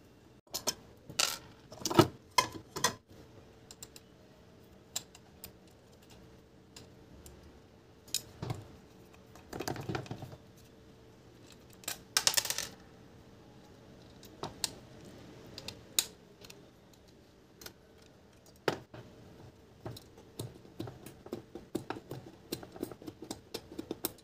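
Scattered clicks and clatter of small screws and a screwdriver on the cast aluminium housings of diesel engine control units being unscrewed and opened by hand, with a few short scrapes of metal on metal as a cover is worked loose.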